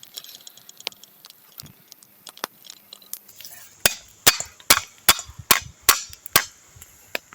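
Scattered sharp crackles and clicks, then, about four seconds in, a run of about seven loud sharp knocks in an even rhythm, roughly two and a half a second.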